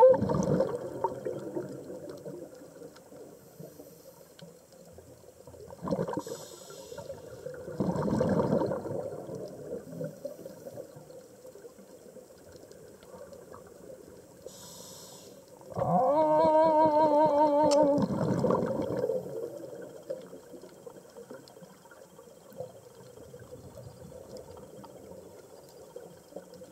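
Scuba diver breathing through a regulator underwater: two breaths, each a short inhaled hiss followed by a rush of exhaust bubbles. The second, louder exhale carries a wavering hum for about two seconds.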